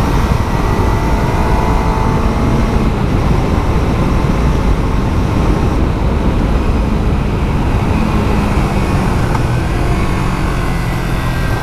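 Onboard sound of a Kawasaki Z300's parallel-twin engine through its stock exhaust while riding, largely buried under a heavy rush of wind and road noise. Near the end the engine settles into a steadier, lower note.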